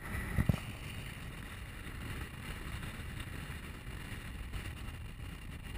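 Steady wind and road noise from a moving vehicle carrying the camera, a low rumble under a rushing hiss, with a brief thump about half a second in.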